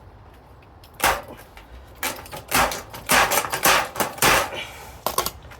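Telescopic hand rivet gun being worked in several strokes to set a 4.8 mm aluminium pop rivet through a steel raised-bed panel: a series of sharp metallic clacks and crunches, the loudest cluster a little past the middle.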